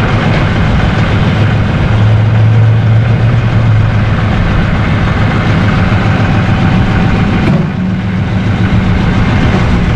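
Mahindra 2.7 L three-cylinder diesel engine of a 2017 Mahindra 5570 utility tractor running steadily at low speed. About 7.5 s in its note steps higher and the sound briefly dips.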